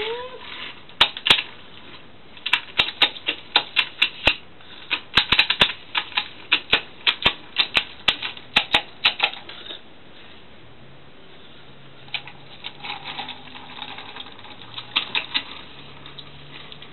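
Toy trains pushed by hand along a wooden window sill, giving a quick, uneven run of sharp clicks and clacks for most of the first ten seconds. A shorter, softer flurry of clicks follows near the end.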